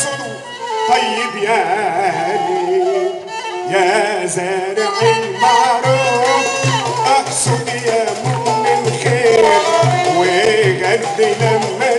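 Live Egyptian folk and Sufi ensemble music: a male singer with bowed spike fiddles (rababa) and flute playing ornamented, wavering melody lines. A hand-drum rhythm comes in about five seconds in.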